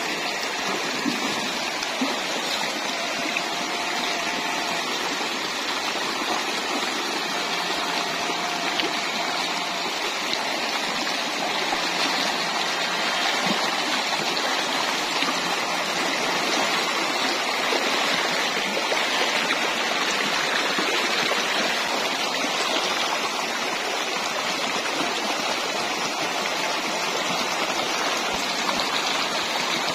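Shallow, fast stream rushing and burbling over rocks: a steady noise of running water that never lets up.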